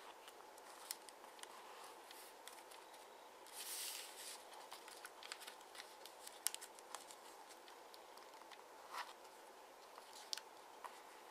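Faint crinkling and small ticks of a 15 cm sheet of origami paper being folded and creased by fingers, with a brief soft rustle about four seconds in and another near nine seconds, over a faint steady background hum.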